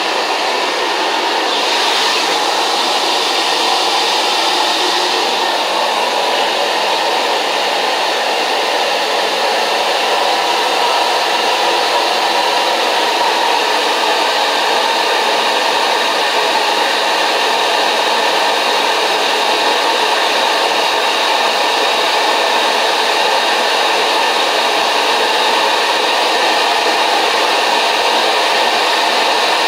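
Hot-water carpet-cleaning extraction machine running steadily as it rinses and vacuums a spot in the carpet, a loud, even rushing hiss with a brief brighter hiss about two seconds in.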